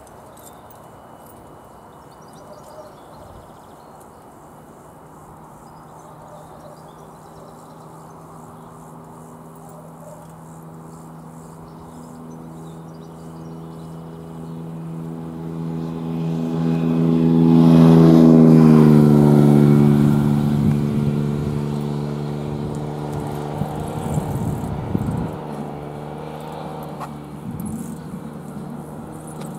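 A train approaching and passing over the level crossing: a steady humming drone grows louder, peaks a little over halfway through with its pitch dropping sharply as it goes by, then fades.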